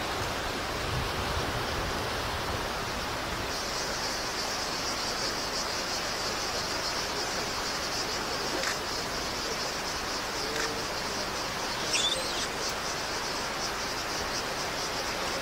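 Cicada chorus: a shrill, pulsing buzz that comes in about three and a half seconds in, over a steady hiss. A brief higher chirp sounds about twelve seconds in.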